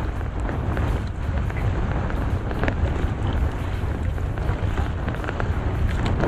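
Wind buffeting the microphone over a steady low rumble at sea, with faint scattered ticks and rustles from a nylon gill net being hauled in by hand.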